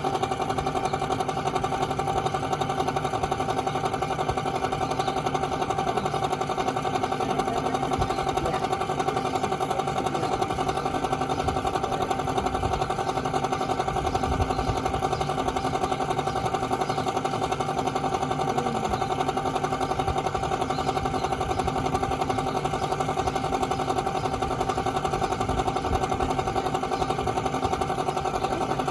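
Fujitsu 1.5-ton air conditioner running with a steady whine and a fast, even rattle from its failing fan motor.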